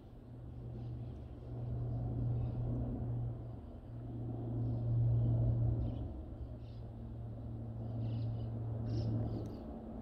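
A distant engine makes a low, steady rumble that swells and eases over several seconds, loudest about halfway through. A few short bird chirps sound above it.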